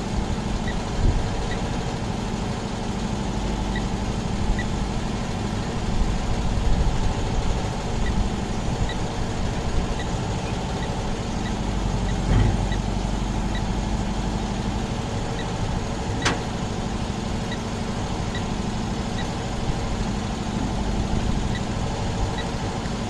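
Volkswagen cherry-picker truck's engine idling steadily, with faint light ticks every second or so and one sharp click about 16 seconds in.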